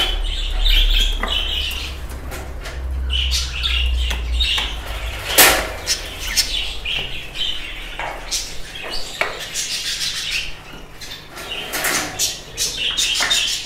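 Budgerigars chirping in their wire breeding cages, with scattered sharp clicks and knocks, the loudest about five seconds in, and a low rumble of handling noise in the first few seconds.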